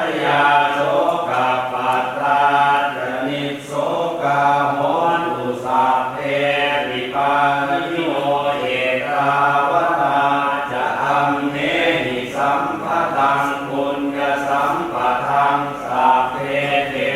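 Group chanting Pali Buddhist verses in unison in the Thai style, a steady recitation on a few pitches.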